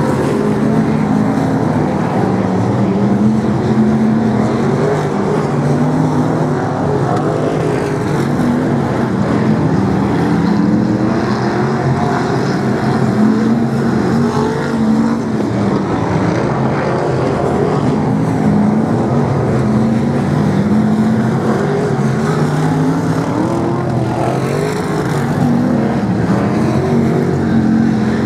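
BriSCA F1 stock cars' V8 engines racing past on the oval, several at once, their pitch rising and falling again and again as they rev up and back off through the bends.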